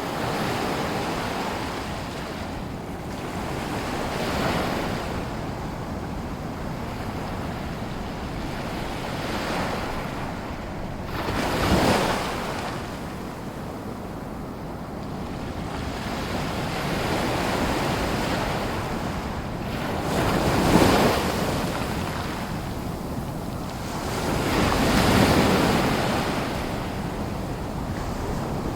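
Small waves lapping and breaking on a lagoon shore, a steady wash with a swell every few seconds; the biggest breaks come about 12, 21 and 25 seconds in.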